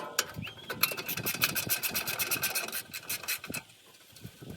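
A heat-shield bolt being run out with a tool: rapid, even ticking, about ten a second, with a steady high whine. Both stop about three and a half seconds in.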